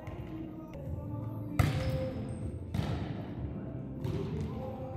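A volleyball being struck during a rally: two sharp smacks about a second apart, the first the louder, each echoing through the gymnasium hall.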